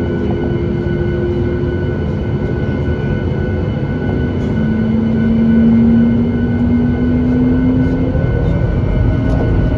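Boeing 737 MAX 8's CFM LEAP-1B jet engines running with a loud, steady rumble. About halfway through, a tone rises slowly in pitch as the engines spool up for takeoff.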